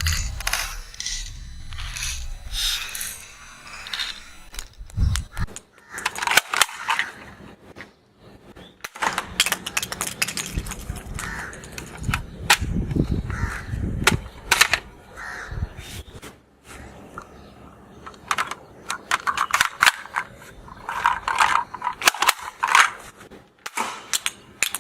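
Plastic toy ball-bullet gun being handled, loaded and fired: many sharp clicks and rattles from its plastic mechanism, with several short, noisier bursts in between.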